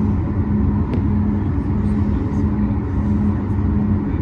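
Cabin noise inside a Boeing 737 MAX 9 taxiing: the steady rumble of its CFM LEAP-1B engines and airframe, with a low hum that drops out briefly every second or so.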